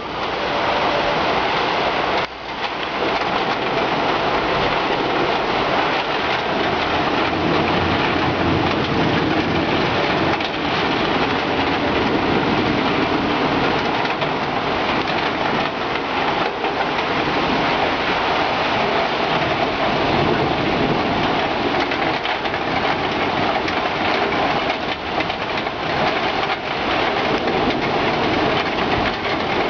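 Heavy rain pouring steadily in a thunderstorm: a dense, even hiss, with a brief drop in loudness about two seconds in.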